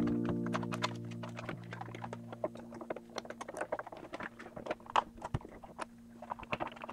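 Hands handling 3D-printed plastic fuselage parts: a run of light, irregular clicks and taps. A held background music chord sounds under them, loudest at the start and slowly fading.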